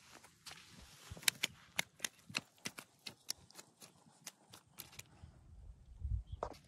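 Small fish flopping on wet mud: an irregular run of sharp slaps and taps that stops about five seconds in.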